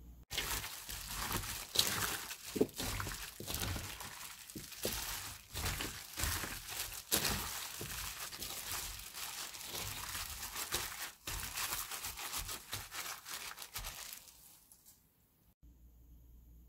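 Cubed radish being tossed and mixed by hand in a plastic glove in chilli seasoning: the glove crinkles and the wet cubes crunch and knock together in a busy run of small clicks. The noise dies away about 14 seconds in.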